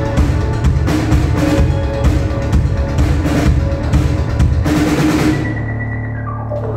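Live rock band of electric guitars, bass and drum kit playing the closing bars of a song, with heavy, steady drumming. About five seconds in the drums stop, and a held chord and a steady low amplifier hum ring on.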